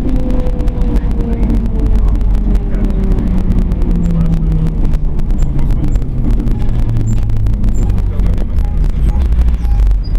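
Tram running with a loud rumble and many sharp clicks and rattles. Its motor and gear whine falls steadily in pitch as it slows down.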